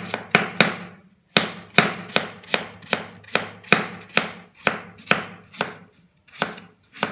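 Kitchen knife slicing a peeled potato on a plastic cutting board, the blade knocking the board about two to three times a second, with a short pause about a second in.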